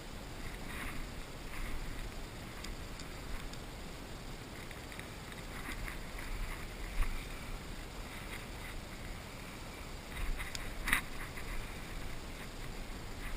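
Steady wind-like rushing on the microphone with scattered light rustling and crackling, and one sharp click about eleven seconds in.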